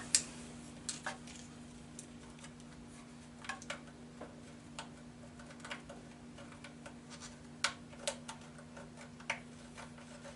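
Faint, scattered light clicks and taps of hand work as a pencil marks hole positions against a metal lathe headstock, over a steady low hum.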